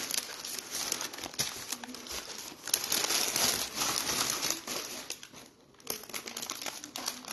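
Crinkly wrapping being handled: a dense crackling rustle that pauses briefly about three-quarters of the way through, then resumes.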